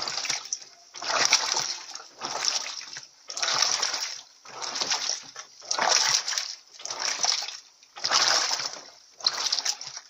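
Electrolux Silent Control 16 kg top-loading washing machine agitating a load of sneakers: water splashing and sloshing in rhythmic surges about once a second as the agitator swings back and forth.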